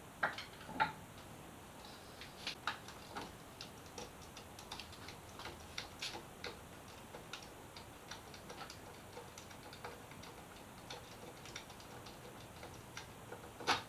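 Faint, irregular light clicks and ticks of hand tools and metal parts, as a motorcycle mirror is unbolted.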